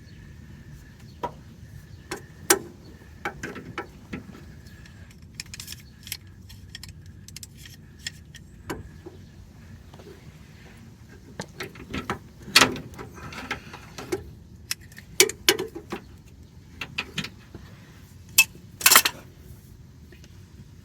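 Irregular metallic clinks, taps and knocks of steering parts and hand tools being handled while a new idler arm is worked into position under a car, with a cluster of louder clanks a little past halfway and a sharp clank near the end.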